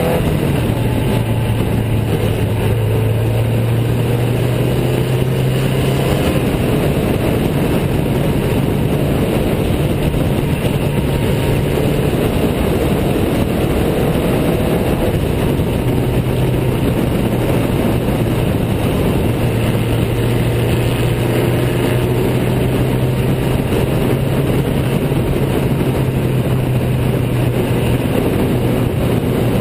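Riley 12/4 Special's four-cylinder engine running hard at racing speed, heard from on board the car over a rush of wind noise. The engine note holds mostly steady, shifting in pitch a few times as the car changes speed.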